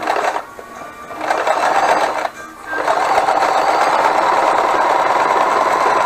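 Frister & Rossmann 502 semi-industrial sewing machine stitching a zigzag through upholstery fabric. It sews a short burst, then a second run about a second in, then a steady run from about three seconds in.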